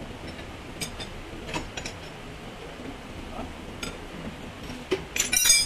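Hand tools and small metal parts clicking against the vehicle body: a few scattered sharp clicks, then a quick run of ringing metal clinks near the end.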